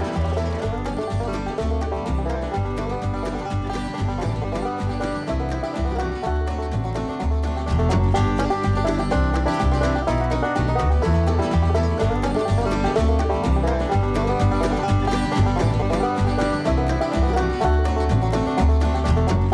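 Upbeat bluegrass-style music led by a plucked banjo over a steady bass beat, a little louder from about eight seconds in.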